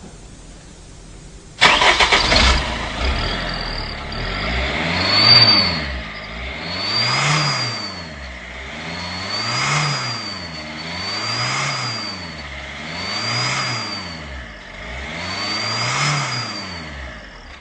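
Car engine starting, then revved up and down about six times. Each rev brings a high whistle from a turbo whistler in the exhaust, rising and falling with the engine.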